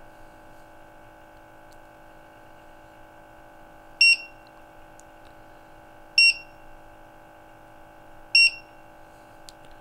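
Trak-It IIIa multi-gas detector beeping during its start-up warm-up: three short, high beeps about two seconds apart, starting about four seconds in, as it steps through its start-up screens. A steady low hum runs underneath.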